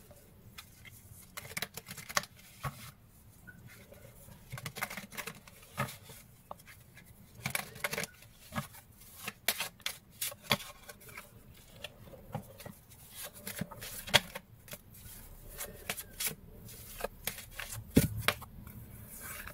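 A deck of oracle cards being shuffled by hand: soft, irregular riffling and tapping of the cards, with a few sharper clicks.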